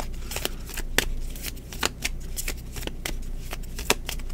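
A deck of cards being shuffled by hand, the cards flicking and slapping against each other in a quick, irregular run of sharp clicks.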